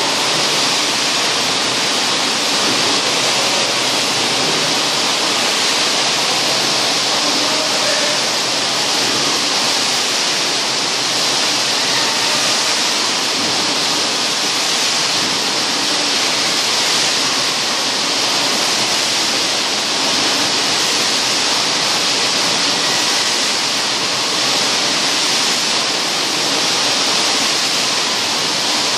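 Loud, steady rushing hiss of machinery running in a factory hall, unchanging in level throughout.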